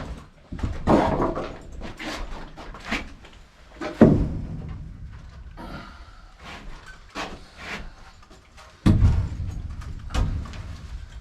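Irregular heavy thuds and knocks of framing lumber being handled and set down, the biggest about half a second, four seconds and nine seconds in, with lighter clacks between.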